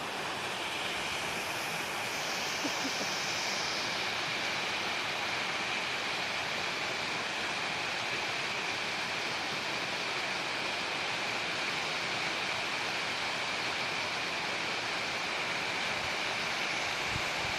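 Steady rushing noise of running water, with a thin high steady tone over it.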